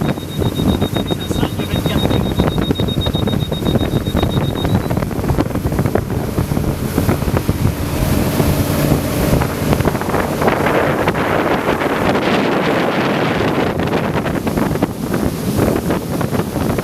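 Wind buffeting the microphone of a moving boat, a loud, choppy rush heaviest in the low end, with water and boat noise underneath. A thin high steady tone sounds through the first five seconds.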